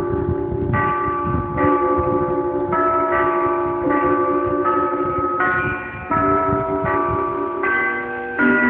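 Church bells ringing from a bell tower. Bells of several different pitches are struck one after another, about one strike a second, and each rings on under the next.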